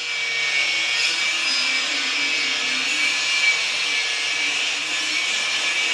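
A small electric tool running with a steady whirring hiss.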